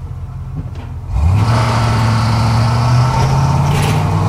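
Ford F-150 engine revving up sharply about a second in and holding high revs under load while power-braked, brake held against the throttle. A rough grinding noise rides over it: the intermittent grinding that appears when the engine is under high stress.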